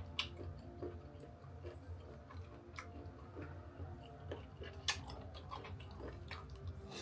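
Close-miked chewing of a spicy Thai seafood noodle salad with crispy dried squid: irregular crunchy clicks, a few every second, over a low steady hum.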